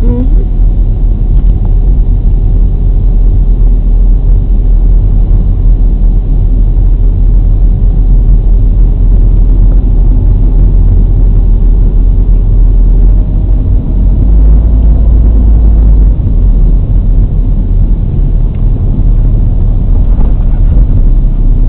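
Car driving slowly on a residential street, heard from inside the car: a steady low rumble of engine and road noise.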